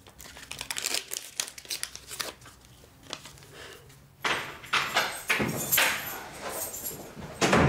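Wound-dressing packaging crinkling and tearing in gloved hands, in short rustles. About four seconds in, a louder, rougher clatter and rustle takes over.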